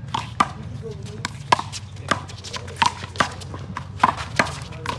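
A one-wall handball doubles rally: a rapid run of sharp smacks, a little over two a second, as the rubber ball is struck by hand and rebounds off the wall and the court.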